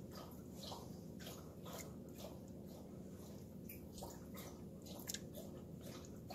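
Faint, soft wet plops and squishes as browned meatballs are set one by one into beef broth in a stainless steel pressure-cooker pot.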